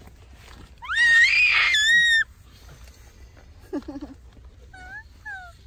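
Toddler's loud, high-pitched squeal of delight, rising and held for about a second and a half, followed by a few short, high little calls near the end.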